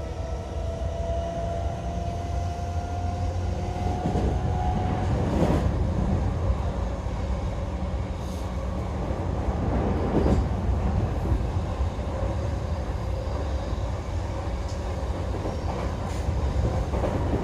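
Onboard running sound of a JR E233-8000 series electric train: the Mitsubishi IGBT-VVVF inverter whines with a slowly rising tone as the train accelerates, fading out about five seconds in. It gives way to steady wheel-on-rail rumble, with a few single thuds from rail joints.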